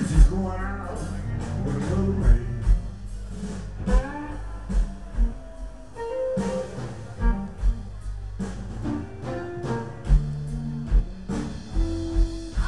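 Live amplified blues music: a guitar playing bent, sustained notes over a bass line.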